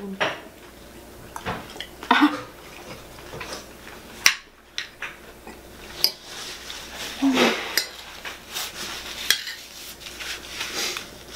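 Metal spoon and fork clinking and scraping against a ceramic dinner plate while scooping rice and food, in scattered sharp taps.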